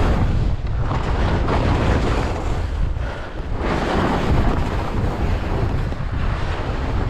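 Wind buffeting the microphone of a skier's point-of-view camera during a fast descent, a heavy steady rumble. Over it, skis hiss and scrape across firm snow, swelling with each turn about once a second.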